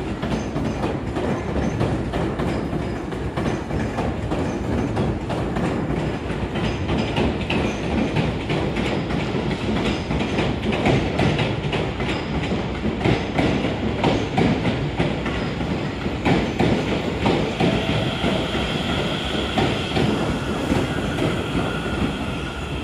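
Seibu electric commuter trains (40000 series, then 30000 series) rolling past on the tracks, their wheels clacking over rail joints and points. A steady high whine joins near the end.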